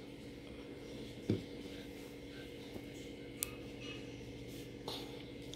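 Quiet room tone with a steady hum, broken by three short, faint taps: about a second in, midway, and near the end, the first the loudest.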